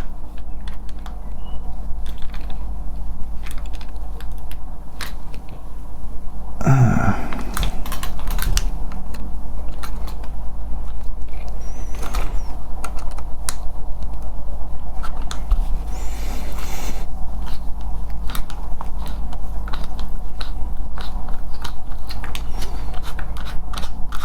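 Small screwdriver working at a screw in a plastic charger housing: an irregular run of small clicks and scrapes, with a heavier knock about seven seconds in. The bit is slipping and chewing up the screw head.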